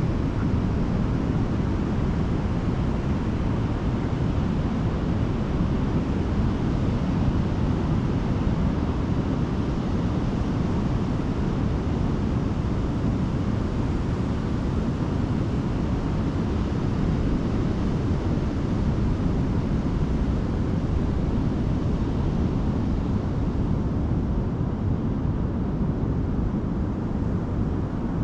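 Steady wind noise on the microphone over the wash of ocean surf, a constant low rush with no breaks.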